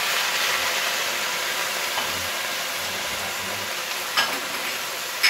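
Bok choy with garlic and ginger sizzling in hot oil in a stainless steel pot as it is stirred with a wooden spatula: a steady frying hiss that eases slightly. A single sharp knock about four seconds in.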